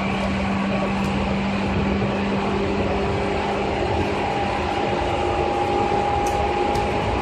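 Seibu 2000 series electric train running on the rails: a steady rumble with a constant low hum. A higher steady whine joins about four seconds in.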